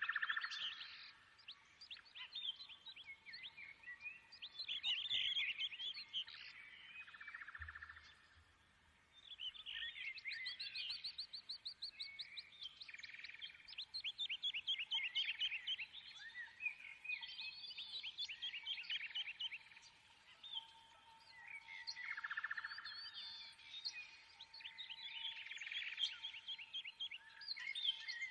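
Birds singing: bouts of rapid chirps and fast trills that come and go with short lulls between them. A faint steady tone sits underneath in the second half.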